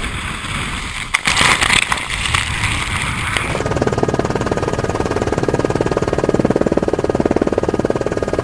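Wind and breaking water rushing over a sailing yacht in a storm, with a louder surge of spray about a second in. About three and a half seconds in, the sound switches to the fast, even chopping pulse of a helicopter's rotor above the rough sea.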